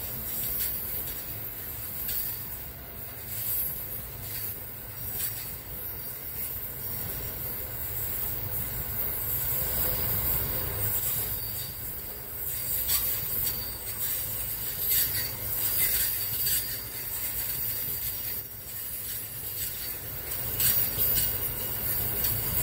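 Freight train wagons rolling past close by at speed: a steady low rumble of wheels on rails, broken every few seconds by short, sharp high-pitched metallic bursts from the wheels.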